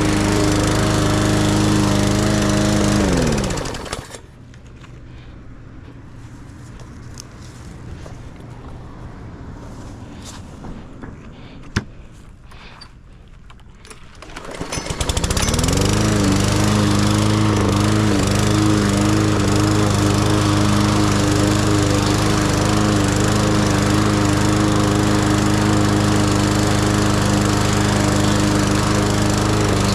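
Lawn mower engine running steadily, then winding down and stopping a few seconds in. About ten seconds of quieter sound follow, with one sharp click, before the engine starts up again, rising in pitch, and runs steadily.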